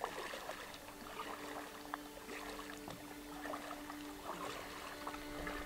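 Small water sounds, drips and light trickling, with soft held music notes underneath that shift pitch every second or two.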